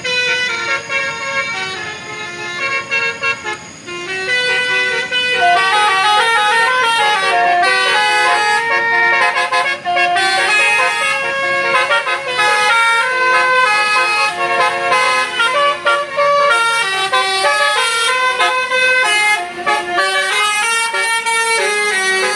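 Bus telolet horn of the Basuri multi-tone type playing a tune. The notes step quickly from one to the next and keep going almost without a break, quieter for the first few seconds and then loud.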